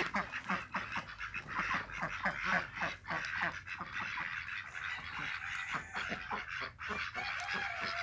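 A flock of birds calling at once, many short calls repeated rapidly and overlapping.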